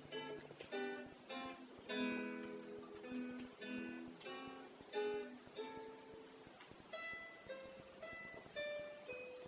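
Solo acoustic guitar playing a melody of single plucked notes mixed with fuller chords, each note sounding and then dying away.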